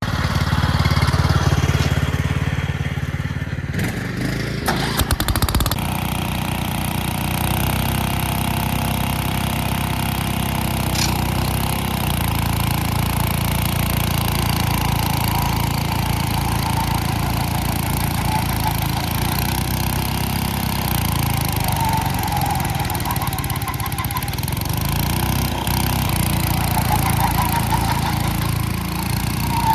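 Cub Cadet and Wheel Horse lawn tractor engines running steadily under load, straining against each other in a tug of war.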